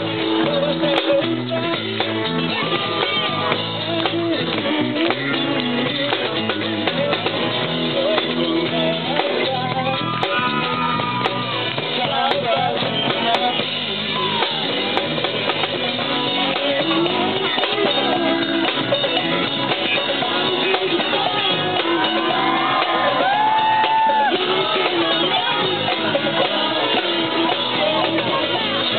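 Live band playing: a singer over a drum kit and guitars.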